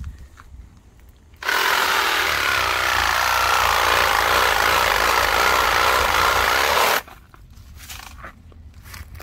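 Cordless power saw running steadily as it cuts through a woody roselle hibiscus stalk at its base. It starts suddenly about a second and a half in and stops suddenly about five and a half seconds later.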